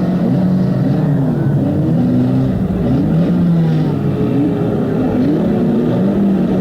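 Engines of several 2-litre banger racing cars revving at once, their pitches rising and falling as they move around the track.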